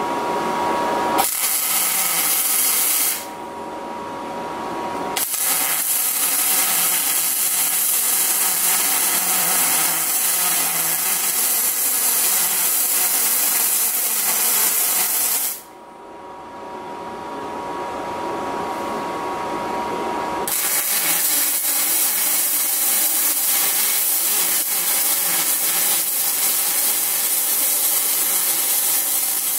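Spool-gun MIG welding arc on 1/16 inch aluminum in short-circuit transfer, running steadily. The sound drops away twice and builds back up, about three seconds in and again about fifteen seconds in.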